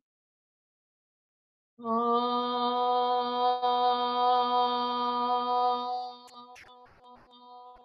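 A woman's voice sings one long 'ah' on a single steady pitch as a voice-work toning exercise, starting about two seconds in. About six seconds in it falls much softer and carries on quietly, with a few faint clicks.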